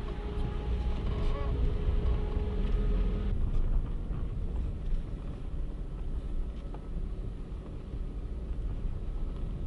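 A car driving, heard as a steady low engine and road rumble; the sound changes abruptly about three seconds in.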